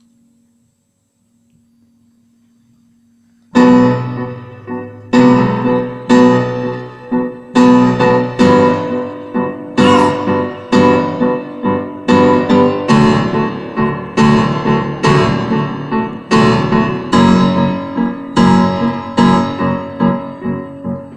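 Grand piano playing loud, repeated chords, each struck and left to ring, in a steady pulse that starts suddenly about three and a half seconds in. Before it there is only a faint held low tone.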